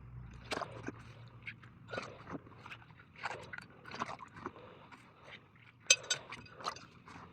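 A bicycle inner tube being handled and turned round in a bowl of water to check for leaks: irregular small crunching and rubbing noises, with one sharper click about six seconds in.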